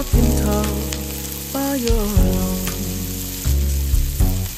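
Sliced bell peppers and onions sizzling and crackling in hot oil in a frying pan. Background music with sustained bass notes and a gliding melody plays over it and is the loudest sound.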